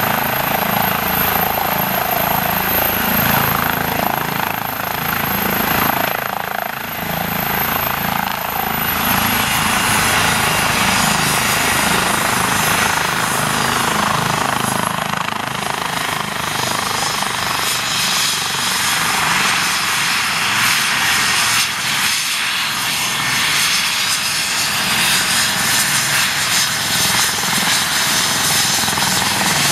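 Eurocopter EC135 P2 helicopter running on the ground, rotor turning: a steady turbine whine over the churn of the rotor, with no change in power.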